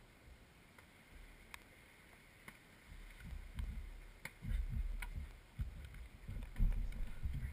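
Wind buffeting the microphone in irregular low thumps, growing stronger from about three seconds in, with a few faint sharp clicks.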